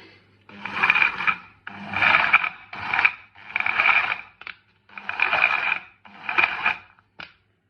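Electric kitchen appliance running in six short bursts of about a second each, switched on and off by repeated button presses: a rasping whir with a steady high whine in it.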